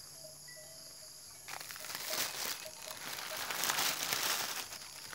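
A plastic bag of banana peels and watermelon rinds rustling and crinkling as it is handled, starting about a second and a half in. Insects chirp steadily throughout.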